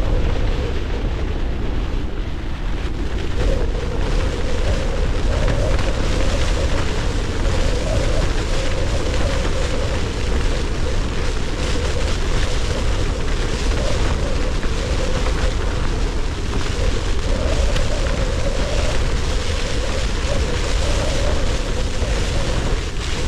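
Storm wind battering a tent whose poles have snapped, the fabric pressed in and shaking, over a heavy unbroken rumble of wind on the microphone.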